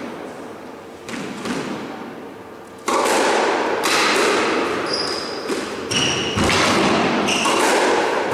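A squash rally: the ball is struck by racquets and thuds against the court walls, and court shoes squeal briefly on the wooden floor. A loud, even rushing noise comes in suddenly about three seconds in.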